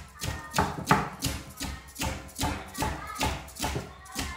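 Knife scraping the large scales off a big fish on a wooden cutting board, in quick regular strokes about three a second.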